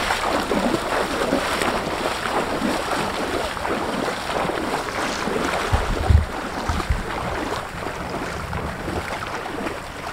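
Feet splashing through shallow seawater as someone wades steadily out, a continuous wash of small splashes. A few low thumps on the microphone about six seconds in.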